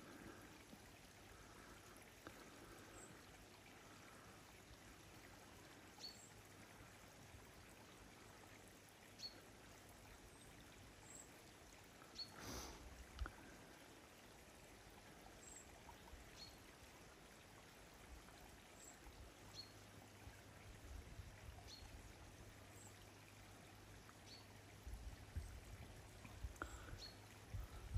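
Near silence: faint outdoor ambience, with soft low rumbles and a few small bumps near the end.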